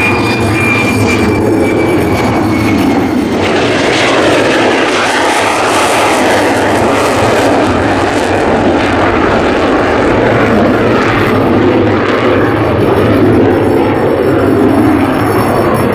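F-35 Lightning II fighter's single turbofan jet engine, a loud, continuous roar, with a high whine that drops slightly in pitch during the first couple of seconds.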